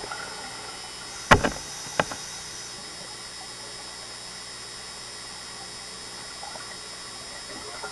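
Underwater ambience with a steady hiss, broken by two sharp knocks, the louder one a little over a second in and the second just after two seconds.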